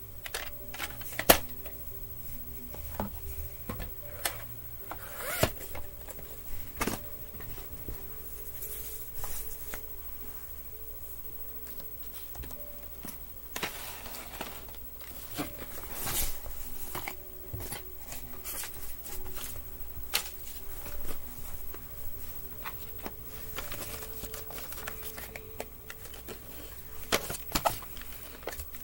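VHS cassettes and plastic clamshell cases being picked up, handled and set down on a wooden floor: irregular clicks, knocks and rustling, with a few sharper knocks.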